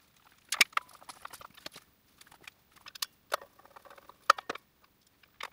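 Irregular light clicks and taps of plastic cover pieces being handled and fitted onto a miter saw's blade housing with a screwdriver. The sharpest clicks come about half a second in and just past four seconds.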